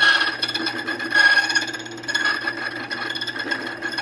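Borkey key-duplicating machine cutting a Schlage key blank: the cutter wheel rasps steadily against the metal over the motor's steady hum, swelling as it is drawn through passes about a second in and again about two seconds in, then easing near the end.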